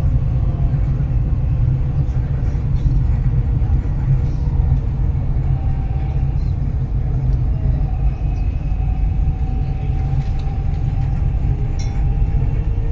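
Dubai Metro train running along its track, heard from inside the carriage: a steady low rumble with a faint whine over it.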